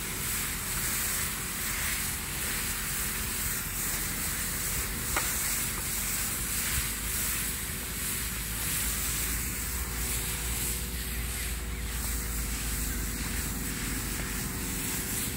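Steady hiss of a high-pressure spray gun misting fungicide over rubber seedlings, with the even drone of the sprayer's motor-driven pump underneath.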